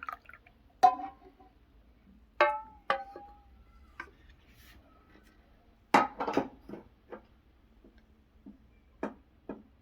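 Kitchen utensils clinking against dishes or glassware: a few separate clinks with short ringing tones, a burst of clattering about six seconds in, and two more clinks near the end.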